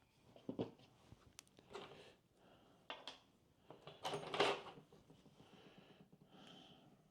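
Small tools and hardware being handled and sorted by hand: light clicks, clinks and rustles, with a louder clatter about four seconds in.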